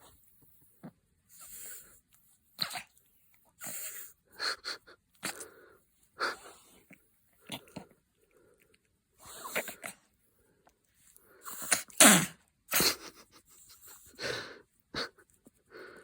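A dog making a string of short, breathy snorts and sneeze-like huffs at irregular intervals, loudest about twelve seconds in: the odd noises of a happy, excited dog.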